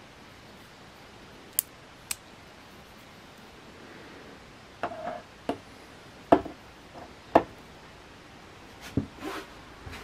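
Victorinox Swisstool Spirit XBS multitool being worked by hand: sharp metal clicks and snaps. Two light clicks come first, then a run of louder clicks and snaps from about halfway, the loudest two near the end.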